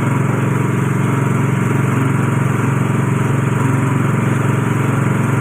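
Coconut-milk pressing machine running steadily, a continuous even mechanical drone with no change in speed.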